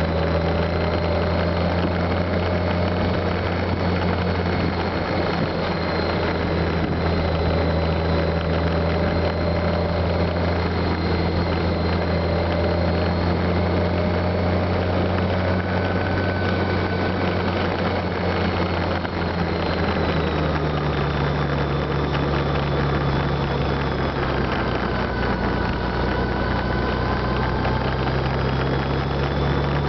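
Honda Gold Wing motorcycle cruising at steady speed: a constant engine note heard from the rider's seat, mixed with wind and road noise. The engine pitch drops about two-thirds of the way through and climbs again near the end.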